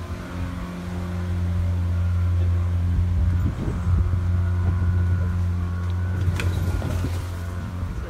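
Boat motor running steadily with a low, even hum, and a few sharp clicks near the end.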